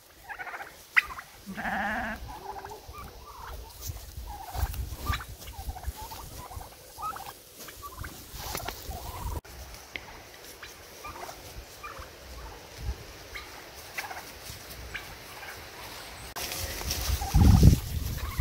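Domestic turkeys calling, with short calls scattered through. A louder rustle with a thump comes near the end.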